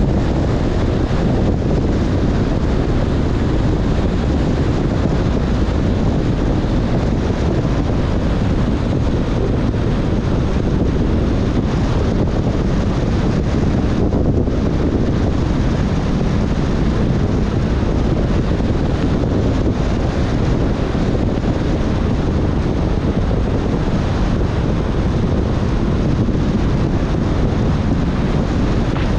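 Steady low wind and road noise from a car driving on a wet road in heavy rain, with wind buffeting the microphone.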